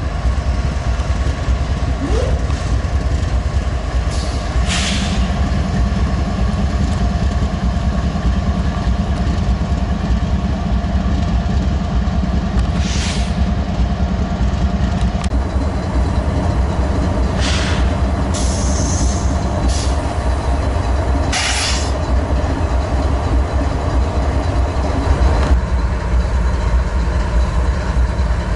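Several freight diesel locomotives passing close by, their engines giving a loud, steady, heavy rumble. Short hissing bursts cut through it four times.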